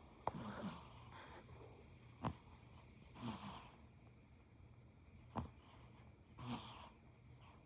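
Teacup Yorkshire terrier puppy snoring and snorting in its sleep: three wheezy breaths about three seconds apart, with three short sharp clicks between them.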